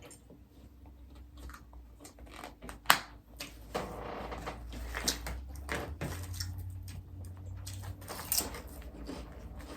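Tabletop handling of food, wrappers and utensils: scattered clicks, taps and rustles, with one sharper knock about three seconds in.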